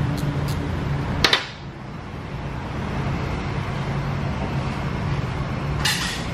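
Wrench work on a car's front brake caliper and brake line fitting: a sharp metallic click about a second in and a short rasp near the end, over a steady low hum.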